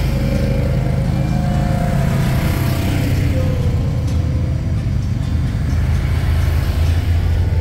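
Quad ATVs and side-by-side UTVs driving slowly past one after another, their engines running steadily at low revs. The hum grows a little louder as the nearest side-by-side passes close near the end.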